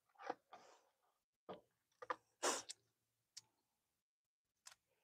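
Raw shrimp being peeled by hand: small irregular snaps and crackles of shell coming away, the loudest about two and a half seconds in.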